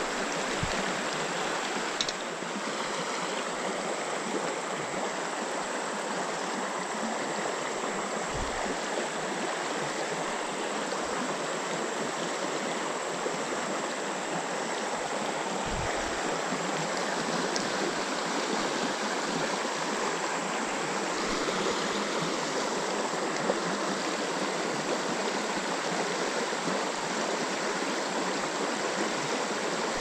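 Creek water running steadily, an even rushing hiss, with a few faint low thumps.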